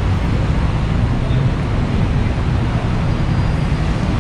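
Steady city street traffic: cars and buses running on the road alongside.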